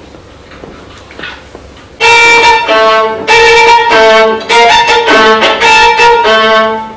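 Solo violin, bowed, starts playing about two seconds in after a few faint knocks in a quiet room. It plays a phrase of separate loud notes, then settles into a softer held note near the end.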